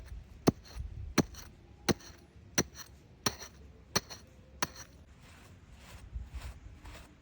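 Repeated sharp strikes of a hand tool, seven evenly spaced blows about 0.7 s apart with a slight metallic ring, stopping a little under five seconds in; softer handling noise follows.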